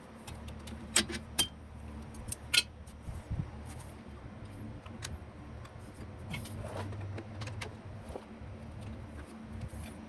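Metal hand tools clinking and tapping as they are handled, a few sharp clicks mostly in the first few seconds, over a faint low steady hum.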